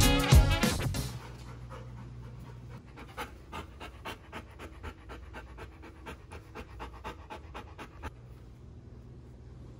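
A Bernese mountain dog panting up close, about three quick breaths a second, after music fades out in the first second.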